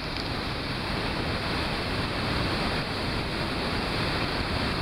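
Water rushing out of a flood-control dam's outlet into the tailrace at very high flow, a steady, unbroken churning of water and spray as the reservoir drains.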